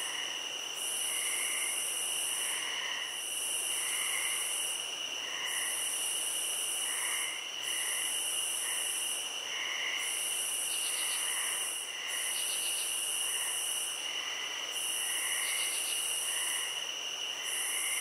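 Chorus of night insects: two steady high-pitched trills, a higher buzz that comes and goes in pulses of about a second, and softer scattered chirps.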